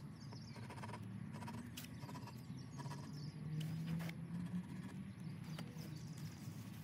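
Faint pencil tracing and paper handling: a pencil drawn around a paper template on painter's tape, with a few light taps and a low hum underneath. Near the end the paper template is lifted off.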